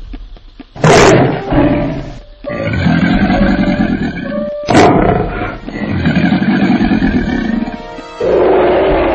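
Lion roar sound effects, repeated long roars, with two sharp crashes, about a second in and again near the middle, over dramatic music.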